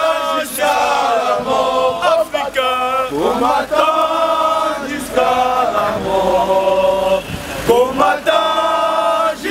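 Group of men's voices chanting a protest chant in unison, in long held notes that rise and fall in pitch.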